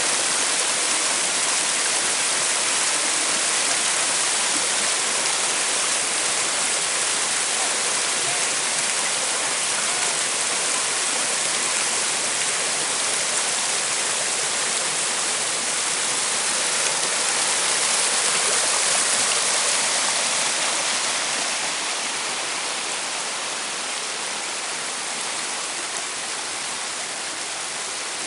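Mountain stream running, a steady rush of water that eases a little over the last several seconds.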